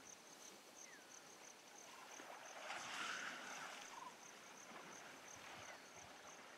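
Faint water sloshing as a wading Asian elephant moves its trunk and body in the water, swelling briefly about three seconds in. An insect chirps in a steady fast pulse throughout.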